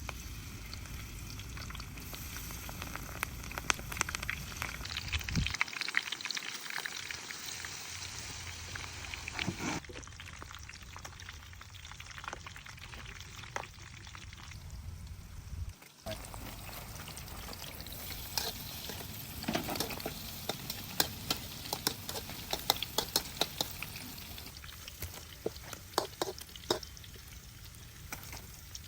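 Broccoli frying in oil in a pan with a steady sizzle, and frequent sharp clicks and scrapes of a utensil stirring it against the pan.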